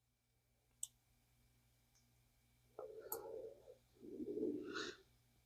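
Faint handling sounds of small fishing-reel parts worked by hand: a single light click about a second in, then soft scuffing and fumbling twice later on.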